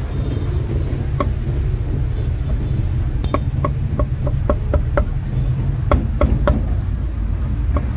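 Meat cleaver chopping cooked pork on a thick round wooden chopping block: a single chop about a second in, then a quick run of chops at about three a second, the blade knocking into the wood with each stroke.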